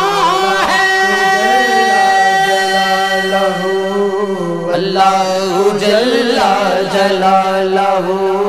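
Men singing a hamd, an Islamic hymn of praise to God, in a slow ornamented melody. It opens with a long held note, then a wavering phrase from about five seconds in, over a steady low drone.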